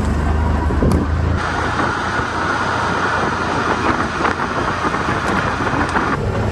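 Can-Am side-by-side UTV driving across grass, with a steady engine hum. About a second in, the sound changes to a steady rush of tyre and wind noise heard close to the front wheel. Near the end it goes back to the engine hum.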